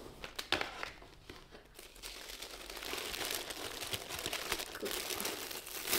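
A few light knocks from handling a cardboard shoe box, then, from about two seconds in, steady rustling and crinkling of tissue paper being unfolded inside the box.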